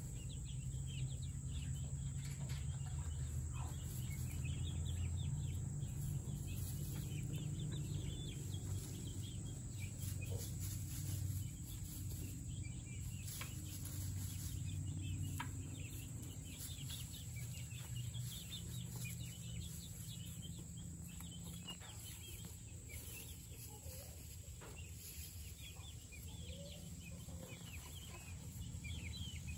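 Young chickens peeping and cheeping, many short high calls overlapping throughout, over a steady low rumble.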